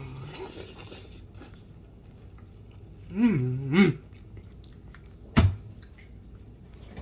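A person chewing a mouthful of cheese fries, with small crunchy clicks throughout. About three seconds in comes an appreciative closed-mouth "mm-mm" that rises and falls twice, and a little after five seconds a single sharp knock, the loudest sound.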